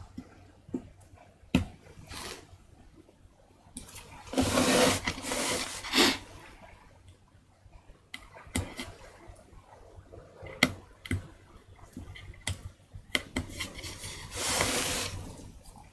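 Hand-carving a woodblock with a small chisel: scattered light clicks and scrapes of the blade working the wood, with two longer, louder rustling swishes, about four and fourteen seconds in.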